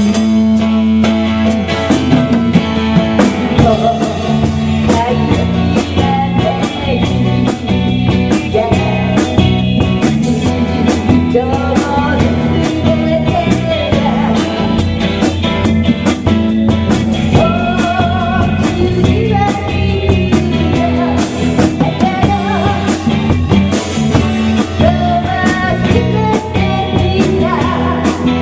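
Rock band playing: drum kit keeping a steady beat with cymbal hits, bass and electric guitar underneath, and a wavering melody line over the top.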